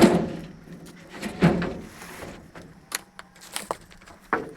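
A series of irregular knocks and clatters, the loudest at the very start, then several more spaced unevenly through the few seconds.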